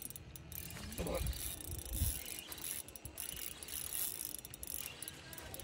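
Fishing reel clicking and whirring as a fish pulls against a bent rod, with two low thumps about one and two seconds in.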